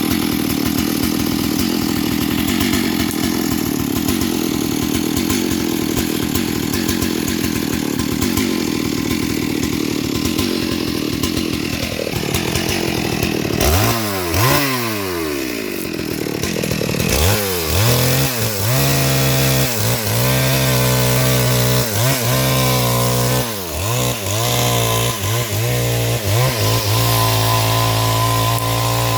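Two-stroke chainsaw running at full throttle, cutting into a big tree. About halfway through the engine falls away and then settles at a lower, steadier speed, blipped up and down every second or two.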